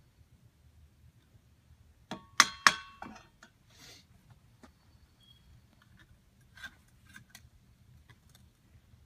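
Steel foundry tools clinking against metal: a quick cluster of three or four sharp, ringing clinks about two seconds in, then a brief scrape and scattered fainter clicks and taps.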